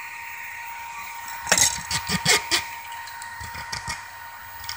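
Hands handling the camera and the 3D printer's extruder: a cluster of clicks and knocks about one and a half seconds in, then a few lighter clicks, over a steady whine.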